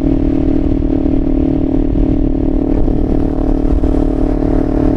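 2025 Kawasaki Ninja 500's parallel-twin engine through a Leo Vince LV Corsa aftermarket exhaust, running loud at a steady engine speed with an unchanging note.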